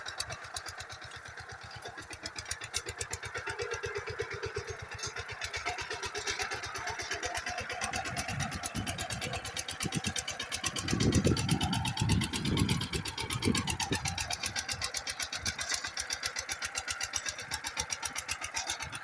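Walking tractor's engine running steadily while ploughing, a fast even chugging of firing pulses, growing louder and heavier for a few seconds past the middle.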